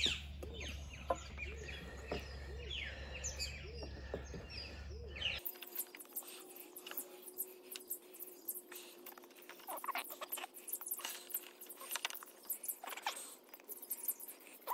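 Birds chirping over a low steady hum. About five seconds in the sound changes abruptly to a run of small quick clicks and taps, hands handling the loose plastic bulb holders and wiring of the tail light.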